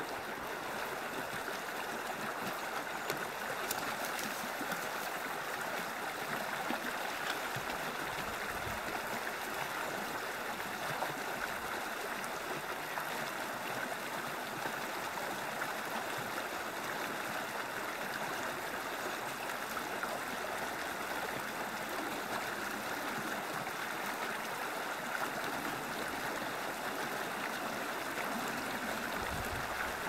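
Small creek rushing and splashing over rocks in a low cascade: a steady, even babble of moving water.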